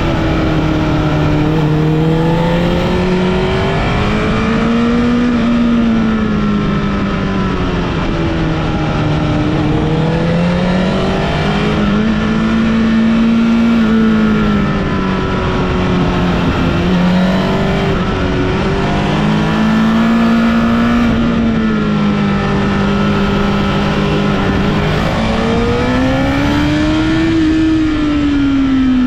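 Honda CBR1000RR (SC77) inline-four sport bike engine under way, its revs rising and falling in long swells every few seconds, over a steady rush of noise.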